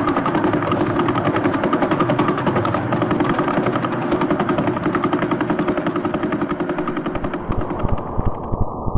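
Background intro music with a fast, rapidly pulsing rhythm. Near the end the treble is cut away abruptly, leaving a muffled beat.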